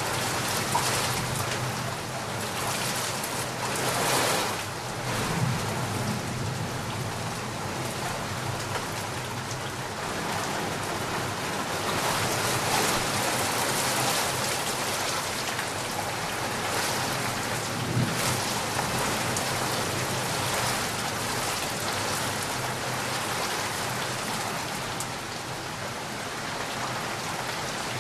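Heavy rain pouring steadily, a dense even hiss that swells now and then.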